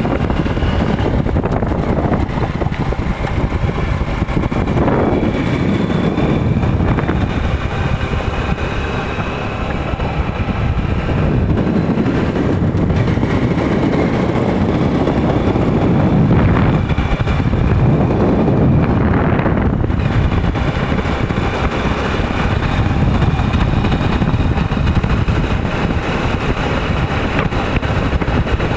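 Motorcycle running at riding speed, its engine under heavy wind buffeting on the microphone.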